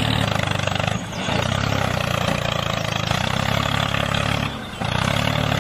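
Tractor engine running steadily, dipping briefly about a second in and again near the end.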